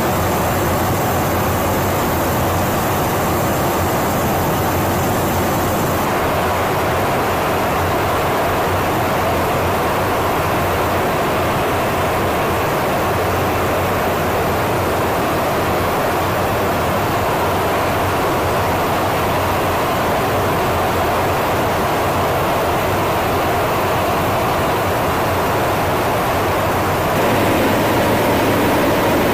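Steady in-flight cabin noise inside a KC-135 Stratotanker's boom pod: a rushing of airflow over a low engine drone. It grows a little louder near the end.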